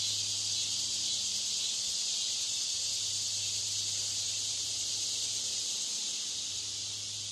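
Steady high-pitched hiss over a low, even hum, with no distinct events. It is the background-noise track mixed into the listening test to mimic a noisy exam room.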